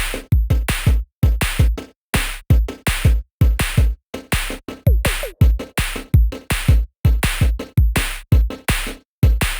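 Electronic music with a heavy drum-machine beat: deep kick hits several times a second in a choppy pattern, with short drops to silence between them.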